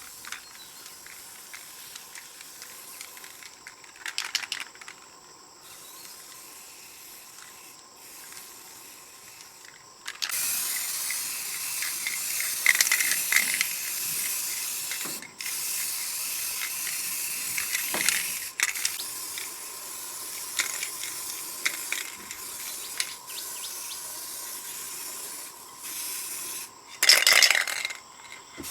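A hissing spray, as from a nozzle, starting about ten seconds in and running in long bursts with short breaks, with a louder burst near the end. Before it there are faint ticks and clicks.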